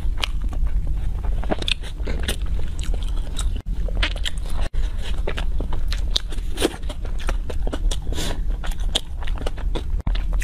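Close-miked eating sounds: chewing, with many small irregular clicks and smacks, and biting into a soft chilled filled bun (ice bread), over a steady low hum. The sound cuts out for an instant twice, a little under 4 and 5 seconds in.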